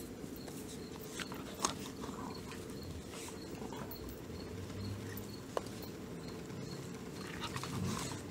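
An adult dog and a puppy play-mouthing each other: soft mouth and fur-rubbing sounds with a few sharp clicks of jaws or teeth, the loudest about one and a half seconds in and again a few times near the end.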